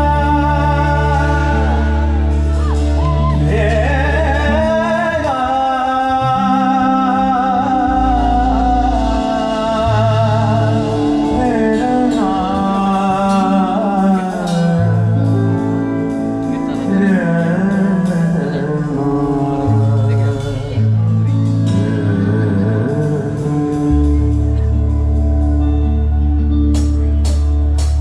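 Live Indian classical-style singing by a male vocalist: a slow melodic line that glides and wavers between notes, over held keyboard chords and bass. A few drum strikes come in near the end.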